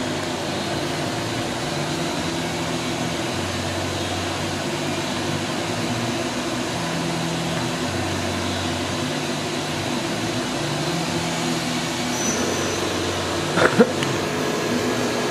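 Doosan DNM 400 vertical machining center running with a steady mechanical hum from its motors and fans. A short sharp clack comes near the end, and a faint high whine starts up shortly before it.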